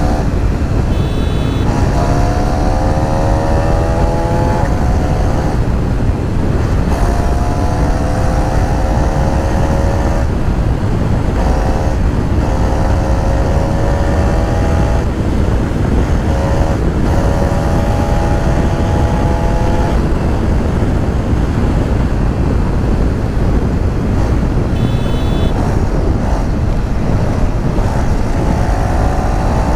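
KTM Duke 390 single-cylinder engine accelerating through the gears: its pitch climbs in each gear and drops at each upshift, several times over, before settling into steady running for a while and starting to climb again near the end. Heavy wind rush on the microphone runs under it throughout.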